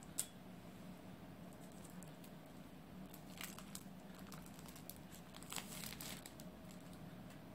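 Faint crinkling and tearing of a thin sausage casing being peeled off by hand, in two short spells a couple of seconds apart. A single sharp click comes just after the start.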